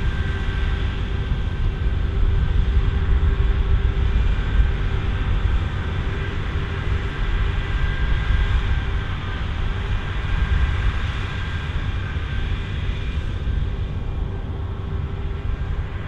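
Claas Lexion 8900 combine harvester running steadily under load while harvesting canola: a deep engine rumble with steady whining tones of the machinery above it.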